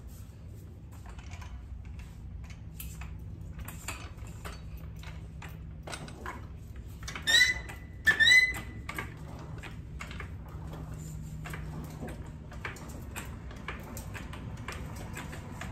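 Hydraulic floor jack being pumped by its long handle to raise a car, giving a run of irregular clicks and knocks from the handle strokes. Two loud, high squeaks with a rising pitch come about seven and eight seconds in.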